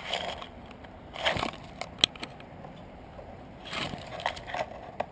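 Rustling and crunching of leaves and twigs as a person pushes through dense undergrowth and steps on dry leaf litter, in several irregular bursts. There are two sharp clicks, one about two seconds in and one near the end.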